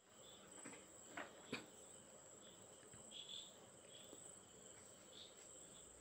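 Faint, steady high-pitched chirring of crickets, with two light clicks about a second and a half in.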